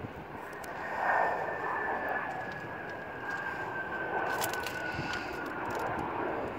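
Jet aircraft engines on a plane rolling along the runway: a steady rush of jet noise carrying a high whine that slowly falls in pitch.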